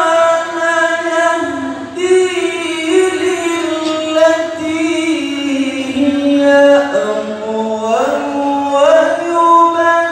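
A male qari reciting the Qur'an in the melodic tilawah style with a high voice, holding long ornamented notes. The pitch slides gradually downward, then climbs back up near the end.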